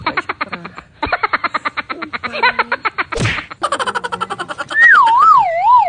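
Edited-in comic sound effects: a whoosh, then a rapid chattering run of short pitched pulses, then a second whoosh about three seconds in. Near the end comes a loud wobbling tone that slides downward.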